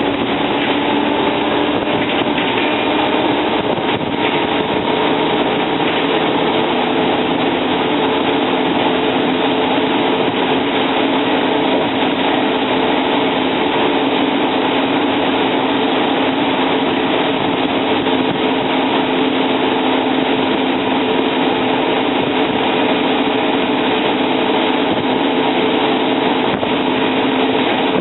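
The Cummins L10 diesel engine of a Volvo Olympian double-decker bus, running under way and heard from on board, with road noise. Its note climbs slightly over the first few seconds, then holds steady.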